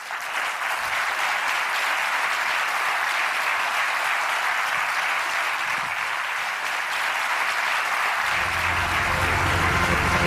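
Large audience applauding steadily after a talk, a dense, even clapping. About eight seconds in, music comes in low underneath the applause.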